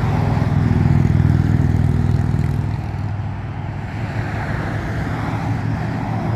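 A wave of motorcycles riding past with their engines running, loudest about a second in, then easing slightly before more come.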